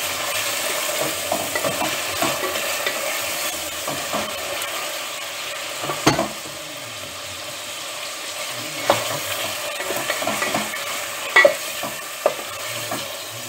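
Minced meat sizzling as it fries in a stainless-steel pot while a wooden spoon stirs and breaks it up, with a few sharp knocks of the spoon against the pot.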